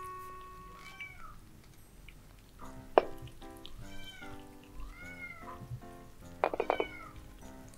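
Kittens meowing, a few short rising-and-falling meows, over background music with steady notes. A sharp click about three seconds in and a quick run of clicks near the end.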